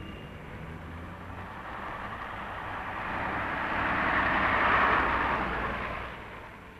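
Double-decker bus driving past, its engine and tyre noise growing louder to a peak about four to five seconds in, then fading away.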